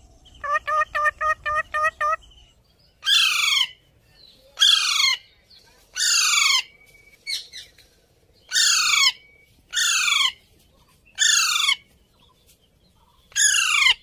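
Psittacula parakeets calling: a quick chattering run of about eight short notes, then seven loud, harsh calls, each sliding down in pitch, spaced a second or two apart.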